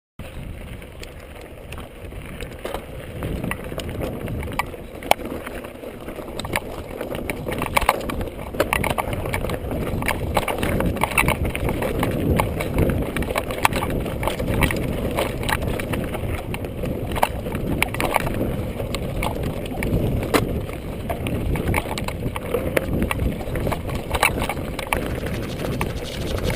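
Mountain bike riding fast down a rocky trail: tyres crunching over loose stones and the bike rattling, with many sharp knocks. It grows louder over the first ten seconds or so.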